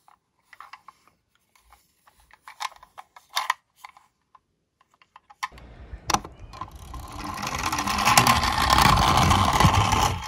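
Light plastic clicks and taps as a toy minicar ambulance is handled. Then, from about halfway, a rising whirring rumble of the toy's wheels running along a wooden board, holding steady near the end.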